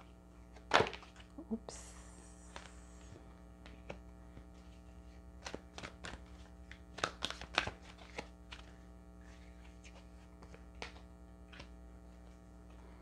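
Oracle cards being shuffled in the hands and laid down on the table: scattered light clicks and flicks of card stock, the sharpest about a second in, with a short rustle just after. A steady electrical hum runs underneath.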